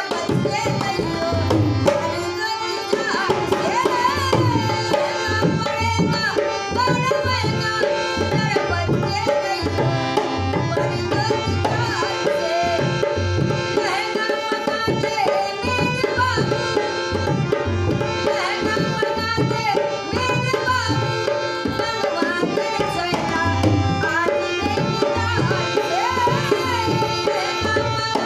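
An elderly woman singing with a hand-pumped harmonium, which sustains chords under her voice, and a dholak beating a steady rhythm.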